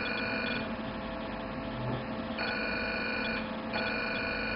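Velure S5 532 nm diode laser's emission tone, a steady high beep that sounds while the laser fires. It stops about half a second in, comes back after nearly two seconds, breaks off briefly and then carries on. A low mains hum runs underneath.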